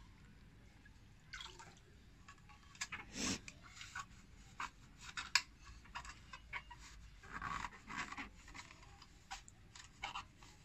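Handling of a wet plastic aquarium filter: scattered light plastic clicks and taps, with short louder rustling bursts about three seconds in and again around eight seconds.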